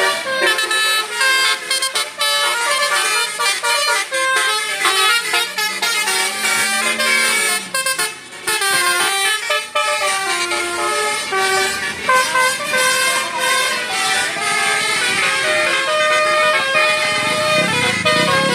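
Bus telolet horn: a multi-tone air horn on a bus playing a quick tune of changing notes, over and over.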